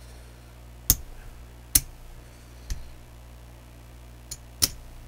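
Casino chips clicking against each other as they are stacked and set down on a craps table layout: five short, sharp clicks at uneven gaps of about a second, one of them faint.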